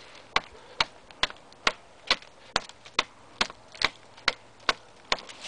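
U-Cleaver chopping blade striking into a 3.5-inch tree trunk with short, quick chops, about two a second, a dozen in a row.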